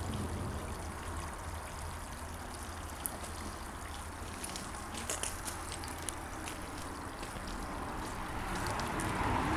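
Tiered garden water fountain trickling steadily, with a few faint clicks about halfway through.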